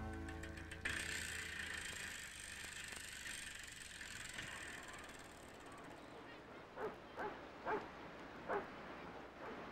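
Faint ticking of a bicycle's chain and freewheel, with a sharp click about a second in. Near the end come four short squeaks, each falling in pitch.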